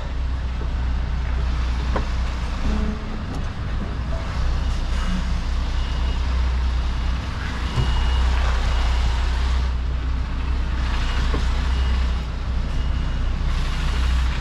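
HGV's diesel engine running steadily at low revs while the articulated lorry reverses. From about five seconds in, a reversing alarm beeps about once a second.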